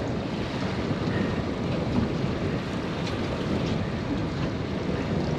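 Wind buffeting the microphone over water lapping against a small boat's hull, with a few faint clicks about midway.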